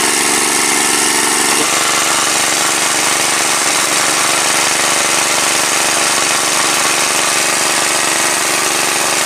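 Small engine-driven water pump running steadily, draining a ditch through its hose.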